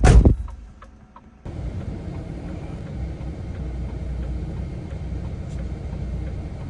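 A single loud bang at the start, then a second of quiet, then a steady low rumble of the lorry's idling diesel engine that starts abruptly.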